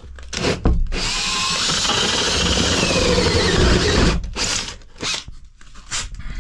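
Power tool running in one long burst of about three seconds, then stopped and given a few short bursts.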